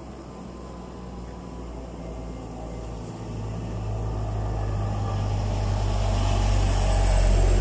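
A motor vehicle approaching along the road, its low engine and tyre rumble growing steadily louder and peaking near the end, with a faint falling whine as it comes close.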